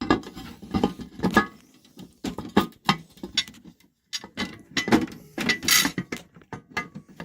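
Lid being worked onto a triple-head candy vending machine: a string of irregular clicks and knocks, with a longer scrape about six seconds in.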